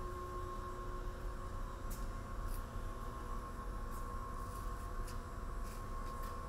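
Workshop room tone: a steady electrical hum with a faint constant whine and low rumble, with a few faint ticks scattered through it.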